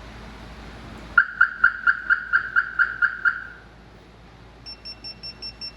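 Motorcycle security system's pre-warning going off: the alarm siren gives a rapid series of about ten loud chirps, roughly four a second, then near the end the two-way pager remote answers with quieter, higher-pitched beeps at a similar rate. The chirps are the warn-away signal from the proximity radar sensor, tripped by someone coming near the bike.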